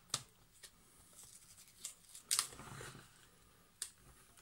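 A cracked laptop LCD panel being eased out of its plastic lid and handled: sharp plastic clicks, and a crackling, tearing sound about two and a half seconds in.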